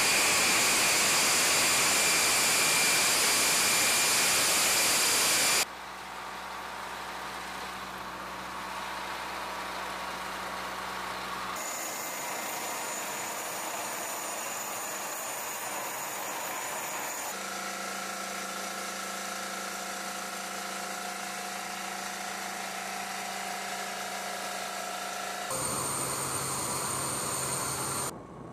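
Steady flightline machinery noise around a B-52 bomber, edited into several segments. For about the first six seconds there is a loud, dense rush with high whining tones, like jet turbines running. After that come quieter, steady humming engines of ground equipment, whose tone changes at each cut.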